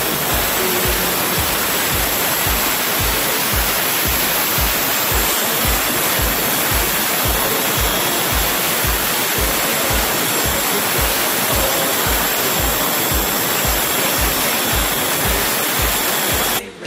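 Handheld angle grinder with a diamond blade cutting a 60x60 ceramic floor tile, a loud steady rushing grind that cuts off suddenly just before the end. Music with a steady beat plays underneath.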